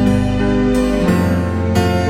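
Background music: a gentle instrumental with sustained keyboard chords, changing chord about a second in.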